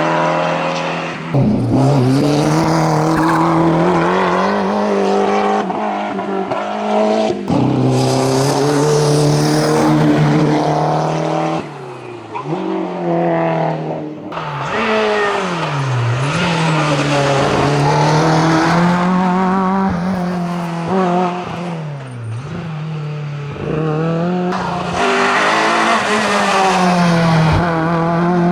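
Race car engine at full throttle, revving up and dropping sharply in pitch at each gear change several times, with short lifts off the throttle before pulling hard again.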